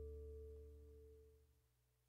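The last held chord of the background music dies away, fading to near silence about half a second in.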